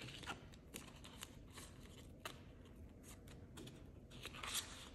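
Faint rustling of polymer banknotes being handled and a clear plastic binder envelope being opened, with a series of light clicks and ticks and a little more rustle near the end.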